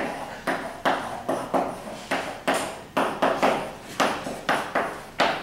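Blackboard eraser being wiped across a chalkboard in quick repeated strokes, about two a second, each starting sharply and fading.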